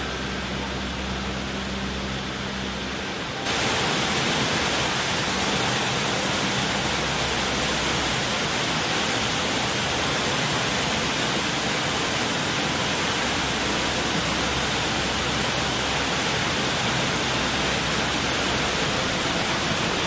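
Fountain water splashing and rushing steadily, with a faint low hum underneath at first. About three and a half seconds in, the water sound jumps suddenly louder and brighter, then holds steady.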